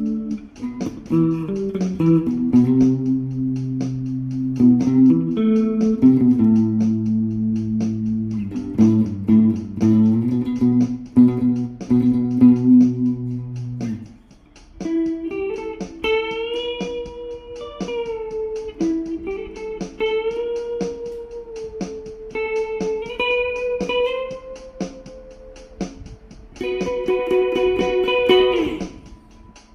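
Epiphone Les Paul Studio LT electric guitar played with a clean tone through a small Nux Mighty 8 amplifier. For about the first half it plays a chord progression with low bass notes; it then moves to a higher single-note melody with bent notes and vibrato, and ends on a held chord that bends off.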